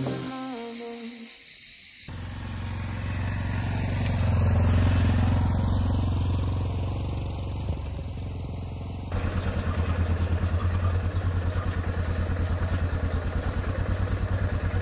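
Music ends about two seconds in, giving way to a Yamaha Ténéré motorcycle engine running steadily, swelling and easing off. Near the two-thirds mark a cut brings a closer, louder engine note with a regular pulsing beat.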